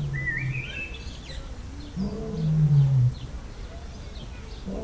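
A large animal's low calls, each about a second long and falling in pitch, one fading just after the start and another about two seconds in, with small birds chirping high over them.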